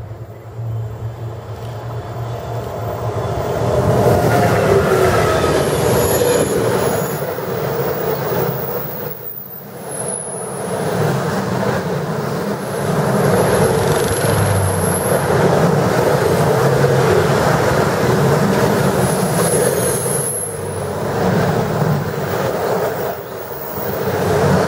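Electric rolling-highway freight train, lorries carried on low-floor wagons, passing close by: a rumble that swells over the first few seconds as it approaches, then a long steady rumble and rattle of the wagons going past, with brief high-pitched wheel squeals now and then.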